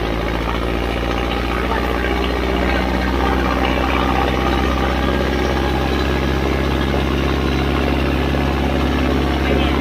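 Ace 6565 tractor's diesel engine running steadily under heavy load while pulling two harrows through soil, growing slightly louder a few seconds in.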